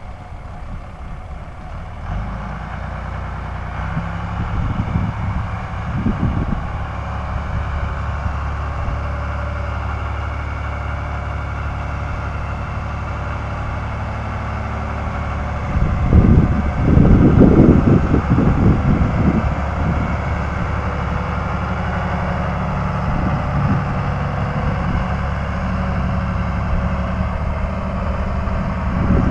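A heavy machine's engine running steadily while it pulls down an old wooden bunkhouse, with a louder, rougher stretch of about three seconds just past the middle.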